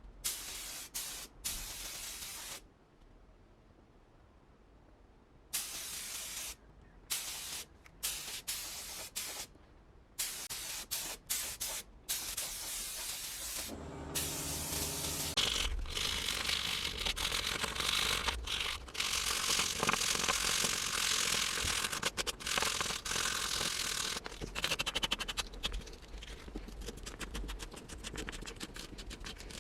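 Pressurised spray hissing in short bursts of a second or two, separated by pauses, then running almost continuously from about halfway with a low hum beneath it.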